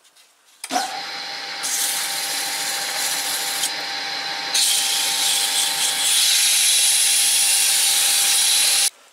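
Wood lathe running with a steady motor whine while a hand-held turning tool cuts the spinning wooden workpiece, giving a loud hissing scrape that grows stronger partway through. It starts suddenly just after the beginning and stops abruptly near the end.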